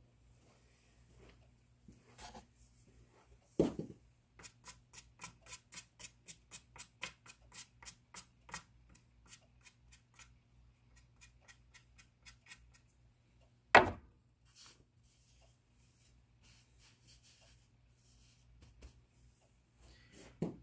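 Billiard balls clacking on a pool table: a sharp knock about four seconds in, then a run of quick, evenly spaced clicks, about three a second for some six seconds, and another loud clack near the fourteen-second mark.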